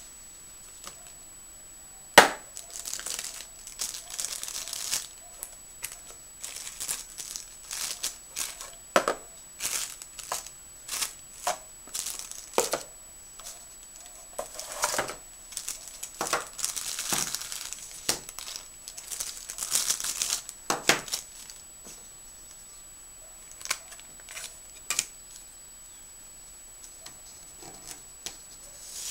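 Unboxing a mobile phone: a sharp snap about two seconds in, then some twenty seconds of crackling and tearing plastic wrapping and cardboard packaging being handled. A few light clicks follow near the end as the phone's back cover and battery are handled.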